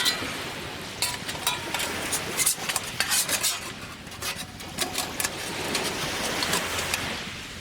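Irregular clicks and clinks of small hard objects being handled, over the steady wash of surf.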